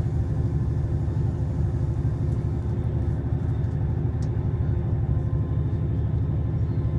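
Passenger train running, heard from inside the carriage as a steady low rumble with a faint tick about four seconds in.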